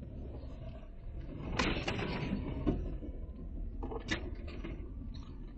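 Jeep Wrangler Rubicon crawling in first gear over a snowy, rutted trail, heard from inside the cab: a steady low engine and drivetrain rumble with sharp knocks and rattles, a cluster about one and a half to three seconds in and another about four seconds in.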